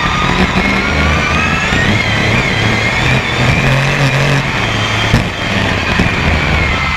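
BRISCA F1 stock car engine heard from onboard the car during a race, its pitch rising and falling as the driver goes on and off the throttle, with two short knocks about five and six seconds in.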